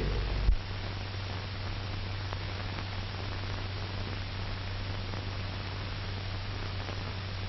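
Steady hiss and low hum of an old 1940s film soundtrack, with no narration or music; the low rumble drops slightly about half a second in.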